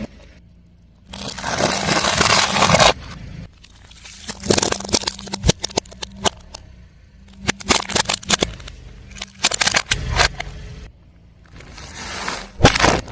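A car tyre rolling over and crushing objects: a couple of seconds of loud crunching and scraping, then a run of sharp cracks and snaps, and another short crunch near the end, in separate takes with abrupt cuts between them.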